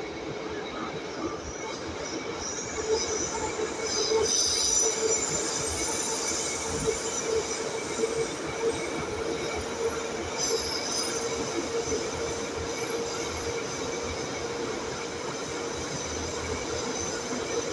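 Metro train running, heard from inside the passenger car: a steady rumble with a constant hum. High-pitched wheel squeal swells up about four seconds in and again briefly around ten seconds, the loudest moments.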